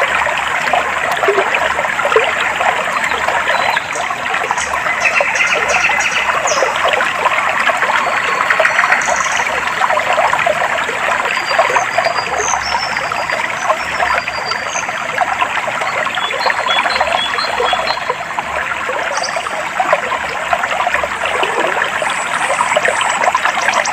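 Clear stream water trickling and babbling steadily. Faint high bird chirps come now and then, with a quick trill near the end.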